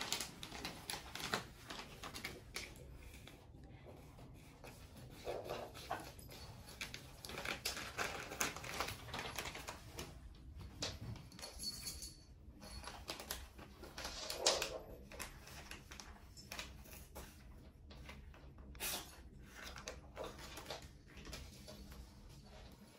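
Faint scratching and rustling as a cat rolls on a wooden floor, clawing and rubbing at a catnip toy and its packet. Two short, louder sounds come about five and fourteen seconds in.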